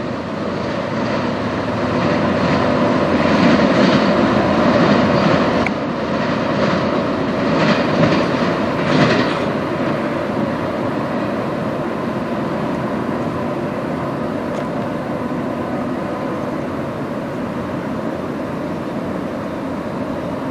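Freight train of autorack cars rolling along the track: steady wheel-on-rail noise, with a few louder clatters about six to nine seconds in.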